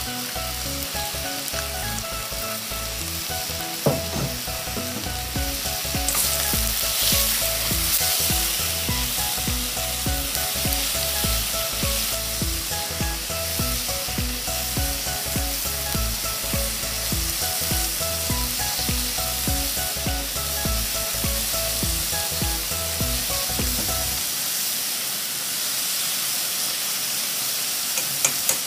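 Pork belly and sliced onions sizzling as they fry in a stainless steel skillet, with occasional clicks of wooden chopsticks turning the meat. Soft background music runs underneath and stops near the end.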